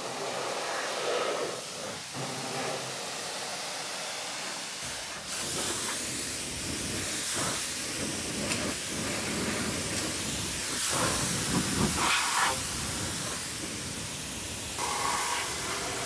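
Pressure washer spray hissing as the water jet blasts mud off a truck's frame and undercarriage. The noise rises and falls as the wand moves, loudest briefly about eleven to twelve seconds in.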